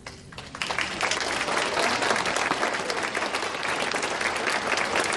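Audience applauding. The clapping starts about half a second in, swells quickly and then goes on as dense, steady applause.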